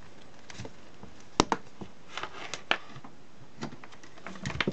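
Scattered clicks and light knocks from a plastic Panasonic ES6003 electric shaver being handled and set down on a silicone mat, the sharpest about a second and a half in and a small cluster near the end. The shaver's motor does not run: it will not charge or switch on.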